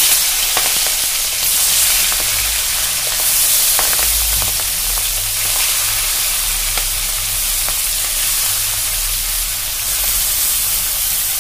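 Shell-on prawns coated in turmeric and salt sizzling loudly in hot oil in a kadhai as they are laid in one by one, a steady hiss with scattered small pops of spattering oil.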